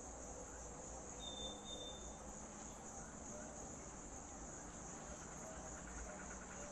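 Faint, steady high-pitched buzzing of an insect chorus, with a short high whistle about a second in.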